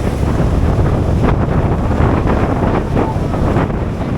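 Wind buffeting the microphone on a moving boat at sea, over a steady low rumble and rushing water.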